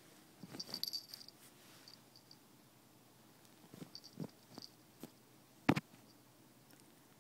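A kitten moving about under a knitted blanket: soft fabric rustling and scattered light clicks, with brief faint high squeaks. One sharp click stands out near six seconds in.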